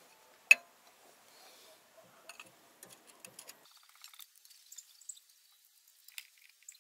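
A sharp metallic click about half a second in, then faint scattered clicks and rustling: a 17 mm wrench being put on and turning the engine oil drain plug of a Scout T-254S tractor to drain the oil.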